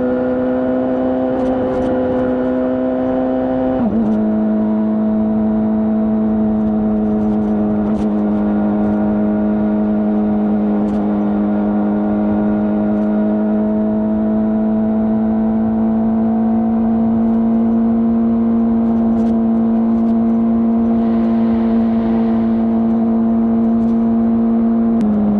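Honda CBR600RR inline-four engine with stock exhaust, running at steady high revs while riding. About four seconds in, the pitch drops with an upshift. It then holds a steady cruising note that creeps slowly higher in pitch.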